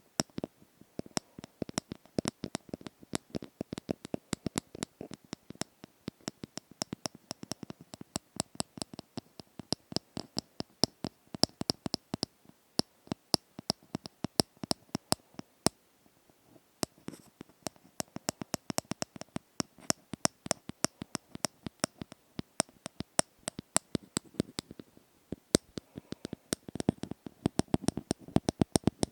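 Close-miked ASMR tapping: quick, irregular taps and clicks, a few a second, with a short pause about halfway through.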